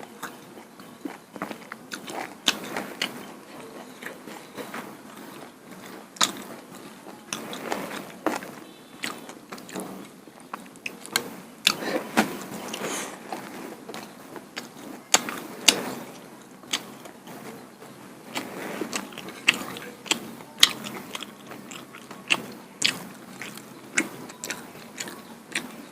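Close-miked eating sounds of a person chewing duck curry and rice-flour pitha: repeated biting, chewing and wet mouth clicks and smacks scattered irregularly throughout.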